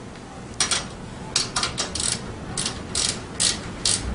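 Hand socket ratchet clicking in about nine short rasps as it runs a nut down onto the rear shock mounting bolt of a small dirt bike.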